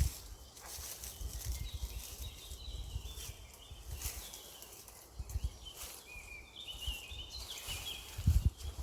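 Songbirds singing in short, rapid chirping phrases, over low rumbling thumps, with the loudest thump near the end.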